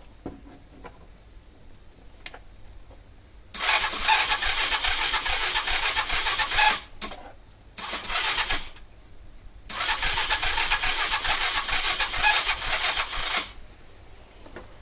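Suzuki Vecstar 150 scooter's electric starter cranking the engine in three bursts, a long one, a short one and another long one, each cut off abruptly. The engine turns over but never catches: a no-start, here caused by a broken wire in the electrical system.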